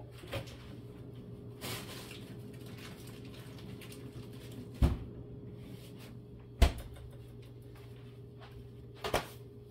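A freezer door being opened and shut, with the freezer bag of chicken being put away: some light handling, then two heavy thumps about a second and a half apart and a smaller knock near the end, over a steady low hum.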